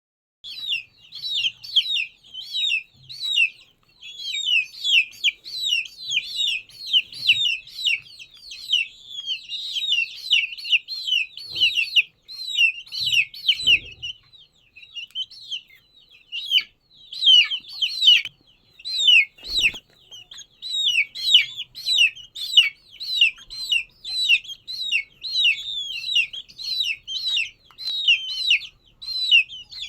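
Baby chicks peeping almost without pause: short high-pitched peeps, several a second, each sliding downward in pitch, with a few soft knocks in the middle.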